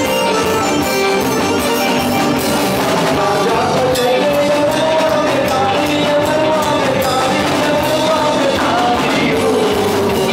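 Live chutney music from a band with electric guitar and drums, loud and steady, with a male singer's wavering melody over it from about three seconds in.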